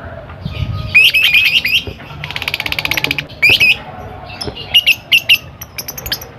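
Lovebird calling in full song: shrill squawks and chirps, a rapid buzzy trill lasting about a second in the middle, then a quick run of sharp squawks near the end.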